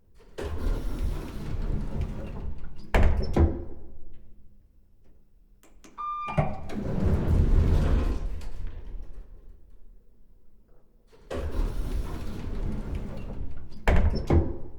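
Old apartment building elevator doors sliding open and shut three times, two of the runs ending in a sharp clunk as the doors close. A brief beep sounds just before the second run.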